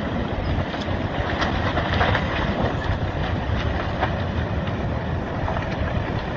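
Landslide rumbling steadily as a mass of earth slides into the sea, with scattered cracks and snaps through it.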